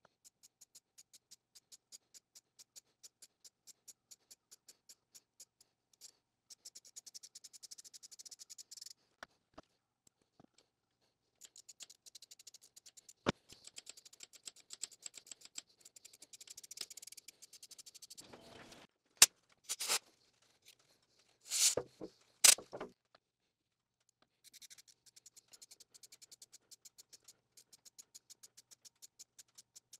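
Quarter-inch ratchet clicking as it drives an M4 tap by hand through a tap socket. Evenly spaced ticks alternate with stretches of rapid pawl clicking, with a few louder clacks and short scrapes about two-thirds of the way through.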